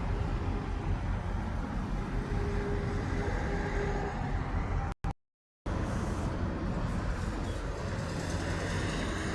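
Road traffic with vehicle engines running, a steady rumble with no horn sounding. The sound drops out completely for under a second about five seconds in.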